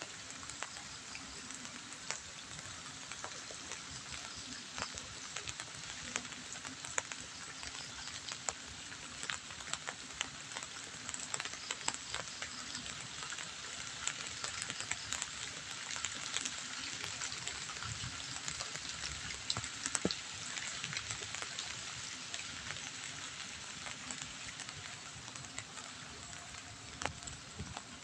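Light drizzle falling on leaves and the ground: a steady patter of rain with many small, scattered drop ticks.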